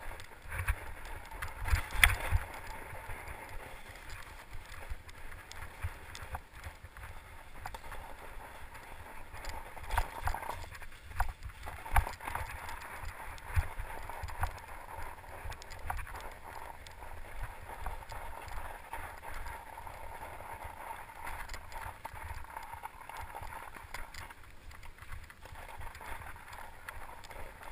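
Fat-tire mountain bike riding on a snowy trail: tyres rolling over snow with the bike rattling and knocking over bumps, the sharpest knocks about two seconds in and again around ten to twelve seconds, over a steady low rumble of wind and vibration on the microphone.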